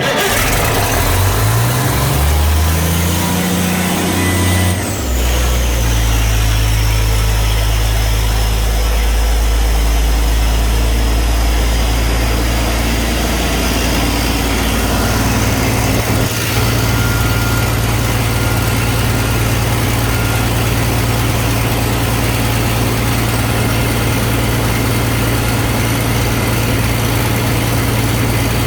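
Diesel engine of an Ingersoll Rand 21-bar, 750 cfm portable air compressor just started: its speed climbs in steps over the first few seconds, then settles about five seconds in to a steady run. A high whine drops in pitch at that point and fades out a little later.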